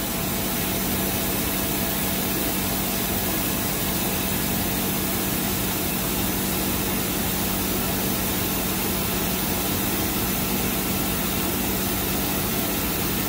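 2008 Tsugami SS20 Swiss-type CNC lathe running with its back spindle turning at a steady 500 RPM: an even machine hum with a constant low tone and a hiss over it.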